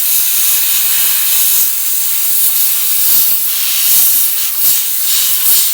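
Jewelry steam cleaner blasting a necklace chain with a loud, steady hiss, rinsing off the residue left after ultrasonic cleaning.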